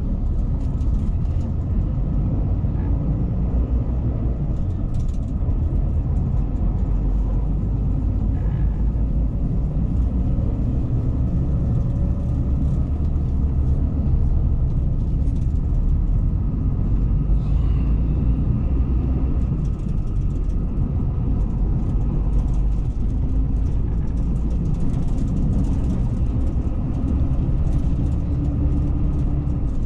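Steady low rumble of a moving coach heard inside the passenger cabin: engine and road noise, with faint light rattles.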